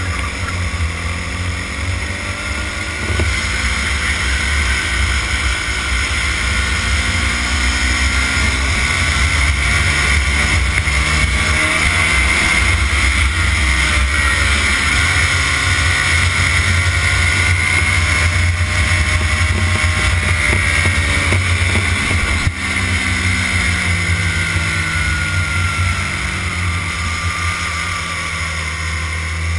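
Racing go-kart engine recorded onboard at full race pace, its pitch rising and falling repeatedly as the revs climb and drop through the laps.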